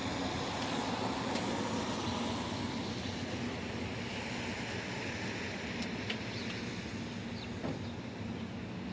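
A steady low engine hum from a running motor vehicle over a constant hiss, with a couple of faint clicks about six seconds in.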